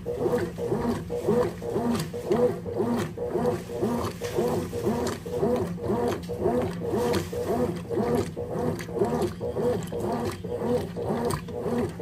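Consul Maxi Economia 13 kg (CWE13) top-loading washing machine agitating a single-size comforter on its stain-removal cycle. The agitator strokes back and forth in a steady rhythm, about three strokes a second, with a rising-and-falling groan and water sloshing on each stroke.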